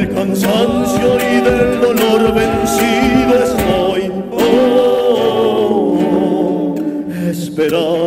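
Male folk vocal quartet singing an Argentine folk song in close harmony, holding long notes, with guitars and a bombo drum beneath; the voices break off briefly about four seconds in.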